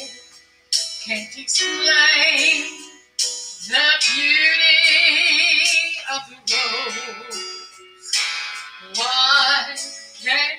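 A woman singing a gospel song into a microphone, amplified through PA speakers. She sings in phrases separated by short breaks, with a wavering vibrato on a long held note in the middle.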